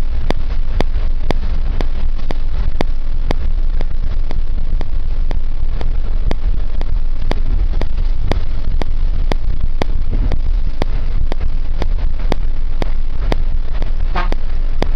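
Steady low engine and road rumble of a vehicle driving at speed, heard from inside the moving vehicle, with a regular click about twice a second. A brief higher tone sounds near the end.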